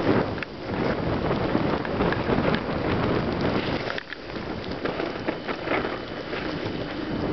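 Wind buffeting the microphone during a ride through a blizzard, a loud rushing noise with dense crackling through it, easing briefly about four seconds in.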